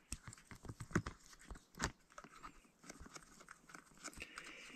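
Fingertip rubbing toothpaste over a dive mask's tempered glass lens to scrub off the factory film: faint, irregular clicks and rubbing of skin on glass and on the mask frame, with a brief squeak near the end.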